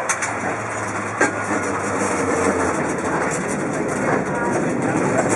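San Francisco cable car running along its track, heard from inside the car: a steady running noise with a low hum, and two sharp knocks about a second apart near the start.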